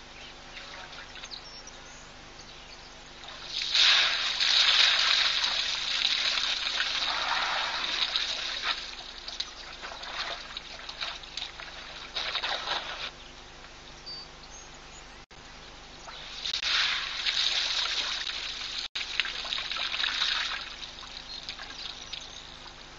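Water splashing and dribbling as an African elephant bull drinks, drawing water up its trunk and pouring it into its mouth, in three spells of a few seconds each.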